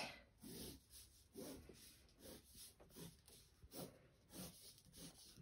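Near silence, with faint scratching of a pencil drawing on paper in short strokes, one every half second or so.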